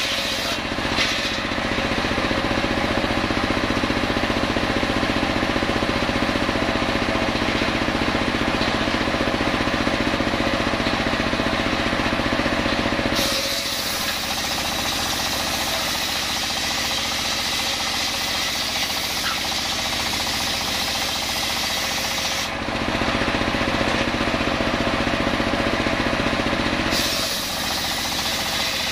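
Homemade engine-driven table circular saw ripping a coconut log lengthwise, the blade cutting under load for about twelve seconds. It then spins free with the engine running for about nine seconds, cuts again for a few seconds, and spins free near the end.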